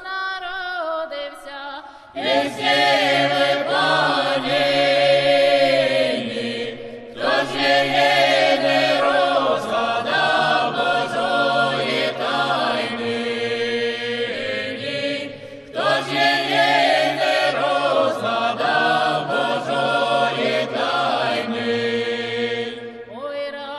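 A group of singers chanting a Taizé-style song in Ukrainian, in three long phrases with short breaths between them, a low note held beneath the melody.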